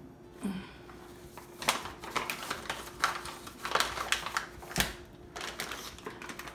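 Kitchen utensils clicking and scraping irregularly against a mixing bowl and ingredient containers as dry ingredients are measured out, over a faint steady hum.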